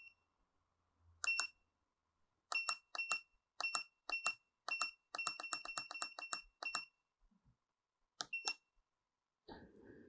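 Short, high keypad beeps from the PAN KLM-2000 cable length meter, one per button press, as the name entry is stepped through with the arrow keys. A few single and paired beeps come first, then a fast run of about five a second around the middle, and a last pair near the end.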